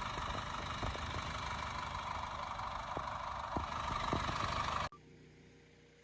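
Tractor engine running steadily while pulling a TUME grain drill sowing wheat, with a few sharp knocks; the sound cuts off suddenly about five seconds in.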